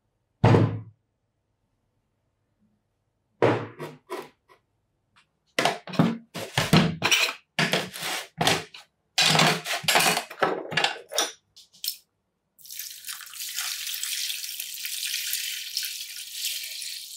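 Dismantled metal parts of an electric demolition hammer set down one after another into a plastic tub, a string of knocks and clatters. About two-thirds of the way in, water starts pouring steadily into the tub over the parts.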